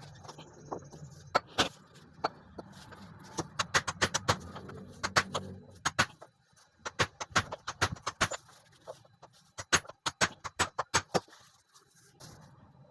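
A new replacement bearing being tapped into its seat with a hammer, because no bearing press is available: sharp metallic hammer blows in quick runs of several, with short pauses between, stopping about a second before the end.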